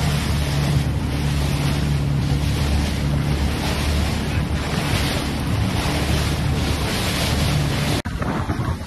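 Wind buffeting the microphone over breaking waves, with a boat engine running steadily underneath. The sound breaks off abruptly near the end.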